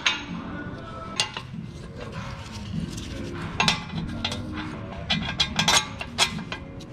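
Hammer strikes and metallic clinks on a steel trailing arm as a spherical trailing arm bushing is hammered in: irregular single hits, then a quick run of several about five to six seconds in.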